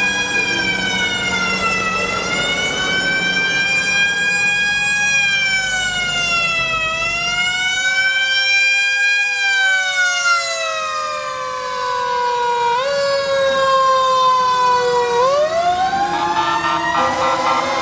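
Fire engine sirens wailing, rising and falling slowly for the first ten seconds. Then one winds down in a long fall, and a second siren winds up near the end.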